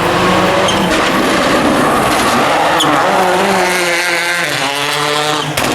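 A rally car's engine revving hard under load, its pitch rising and dropping with gear changes. There is an abrupt change in the sound near the end.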